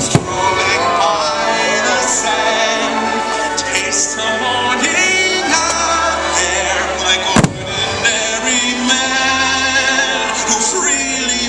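Fireworks show soundtrack of orchestral music with singing, with firework bangs over it: a sharp one right at the start and another loud one about seven and a half seconds in.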